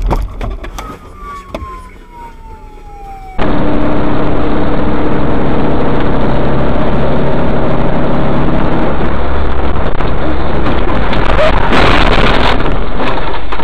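Dashcam audio of a moving vehicle: loud, steady engine and road noise that cuts in suddenly a few seconds in, overdriven close to clipping, with faint steady engine tones and a brief swell about two seconds before the end. Before it there is a short thump and a thin tone slowly falling in pitch.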